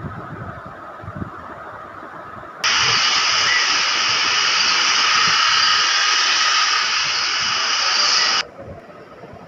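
Heavy rain hissing steadily, loud and even. It starts suddenly about three seconds in and cuts off just as suddenly near the end. Before it there is only a fainter, steady outdoor hiss.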